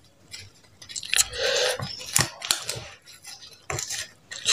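Adhesive seal strip being peeled off a paper envelope, the paper tearing with a crackling rip about a second in and again near the end.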